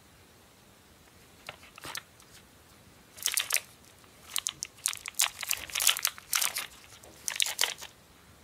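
Thin printed plastic candy wrapper crinkled and crumpled by hand, in a run of sharp crackles that start about a second and a half in and come thickest in the second half.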